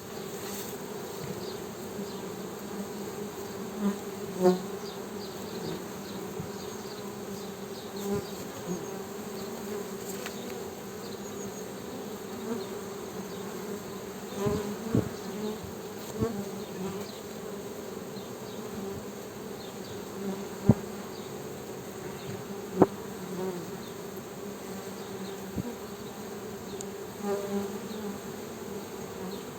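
Many honey bees buzzing in a steady, continuous hum, with individual bees now and then swelling louder as they pass close. Two sharp clicks stand out about two-thirds of the way through.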